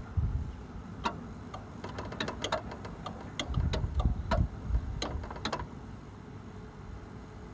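A run of light, sharp clicks at an uneven pace, about fifteen over four or five seconds, stopping a little past halfway. Under them is a low rumble that swells twice.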